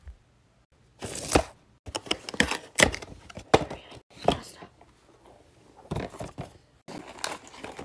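Plastic packaging crinkling and small cardboard boxes being handled, heard as a string of short, sharp rustles and taps. These start about a second in, after a moment of near silence.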